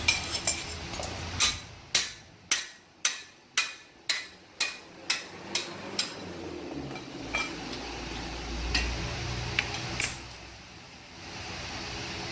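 A run of about ten hammer blows on metal, roughly two a second, starting about a second and a half in, followed by a few scattered knocks.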